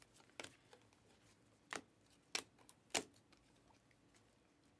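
Panini Prizm basketball trading cards being flipped through by hand, giving four faint, sharp clicks as each card is slid off the front of the stack and its edge snaps against the others.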